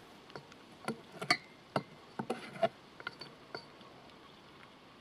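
Scattered light clicks and pops, about one or two a second and unevenly spaced, from chicken frying in oil in a steel pot while a knife and stick turn the pieces.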